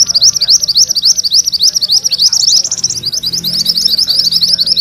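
Mantenan kuning singing its rolling (ngerol) song: a fast, unbroken run of repeated rising high notes, with a brief catch about three seconds in.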